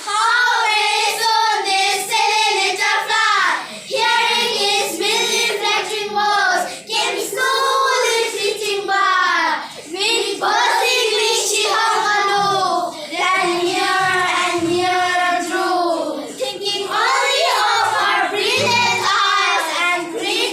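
A group of young children reciting a poem together in a sing-song chant, their high voices carrying on with only brief pauses between lines.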